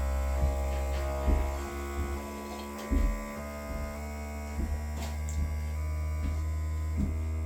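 Bambu P1S 3D printer running its vibration-compensation calibration: the motors make a steady electric hum and buzz, with tones that step to new pitches every second or so. A few short knocks come through, the loudest about three seconds in.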